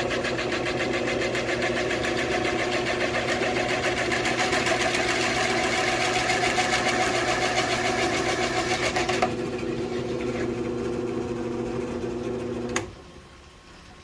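Benchtop drill press running, driving an adjustable circle-cutter bit through a plastic bucket lid: a steady motor hum with the cutter's scraping over it. The cutting noise stops about nine seconds in as the cut finishes, and the hum cuts off with a click near the end as the press is switched off.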